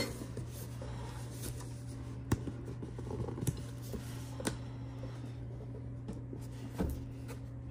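A steady low hum of an appliance, with a few sharp clicks and light rustling as packaged food containers are handled.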